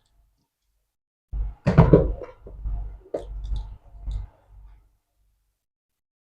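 Flour sifter knocking and tapping against a bowl as flour is sieved: a run of irregular knocks starting a little over a second in and lasting about three and a half seconds.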